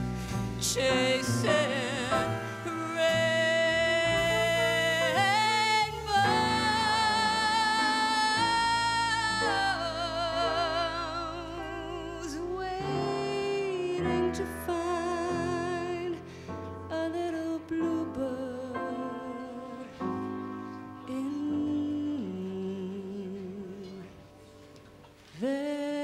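A woman singing a jazz song live with a small jazz band of trumpet, upright bass and drums, the lyric "chasing" sung early on, then long held notes with wide vibrato. The music drops quieter about two seconds before the end.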